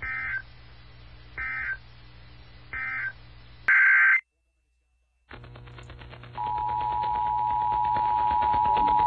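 Emergency Alert System data bursts: three short, equal buzzy bursts of digital tones about a second and a half apart, the End-of-Message code closing the alert, then a louder burst that cuts off abruptly. After a second of silence a hissy broadcast feed comes in, and about six seconds in the steady two-tone EAS attention signal starts and keeps sounding.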